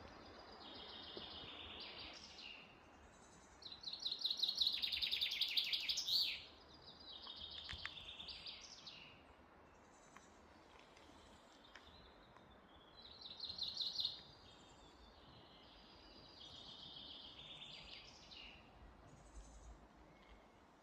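A songbird singing in separate phrases of quick high notes, several seconds apart, the loudest about four seconds in, over a faint steady background hiss.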